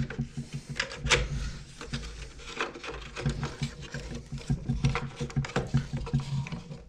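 Plastic handle housing of a Stihl BG55 leaf blower being fitted and jiggled into place over its throttle linkage, giving irregular light clicks and knocks of plastic on plastic, over a low steady hum.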